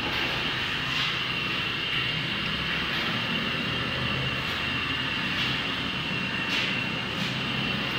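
Water filtration plant machinery running steadily: a constant rushing hum with a steady high whine over it.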